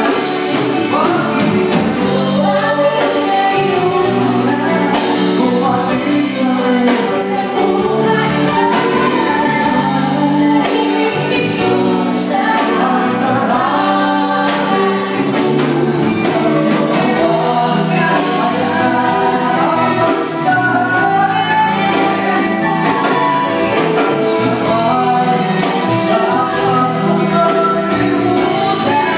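Live band playing through a PA, with a woman and a man singing into microphones over keyboard, drum kit with cymbals, congas and electric guitar.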